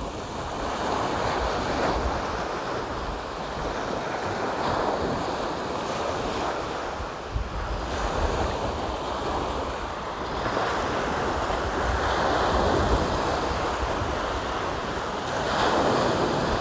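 Sea surf breaking and washing up the shore, surging louder and softer as each wave comes in, with wind buffeting the microphone.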